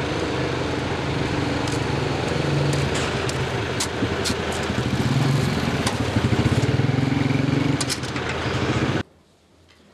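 A small motorcycle engine running along the street, its note rising and falling and growing louder over the last few seconds, with a few sharp knocks along the way. The sound cuts off suddenly about nine seconds in.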